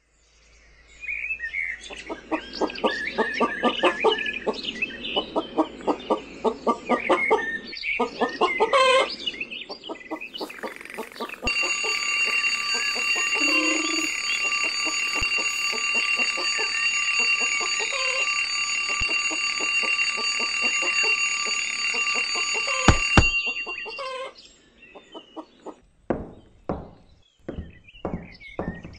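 Chickens clucking in a farmyard for the first ten seconds. Then a twin-bell alarm clock rings steadily for about twelve seconds and stops with a sharp click. Near the end come slow, even footsteps on stairs.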